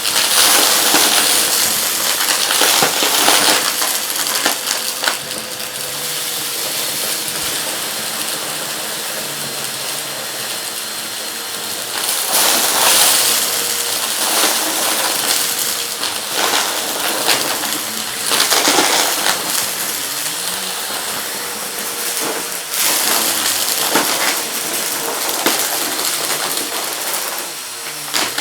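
Vacuum cleaner running steadily while sucking up small hard debris, which rattles and clatters through it in repeated bursts.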